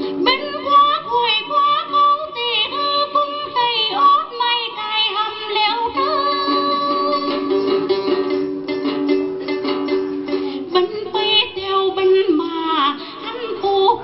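Tày folk music: quick plucked notes of a đàn tính lute over held low accompanying notes, with a wavering melody line above.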